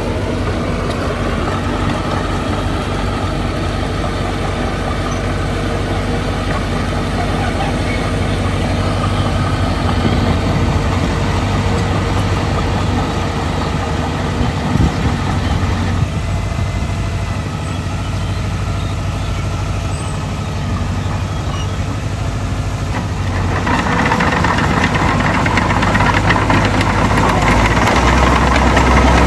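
Heavy diesel earthmoving machinery running steadily, with a brief knock about halfway through. The engine note shifts shortly after and grows louder in the last several seconds.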